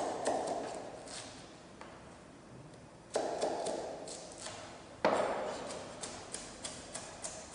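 Chef's knife chopping carrots on a cutting board. There are three heavier knocks, each followed by a ring that fades over a second or two, then a steady run of quick strokes, about four a second, from around six seconds in.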